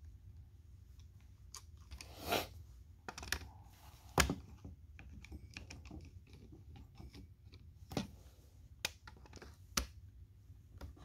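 Scattered light clicks and knocks of hand tools and small parts against a Husqvarna 350 chainsaw's body as the chain tensioner part is worked loose, about half a dozen, the sharpest about four seconds in, over a faint low hum.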